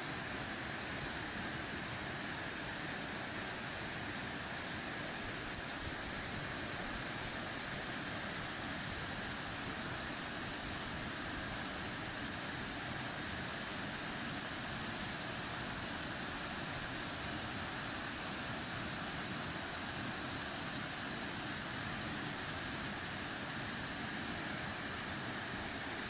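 Cusárare waterfall pouring down a rock face: a steady, even rush of falling water.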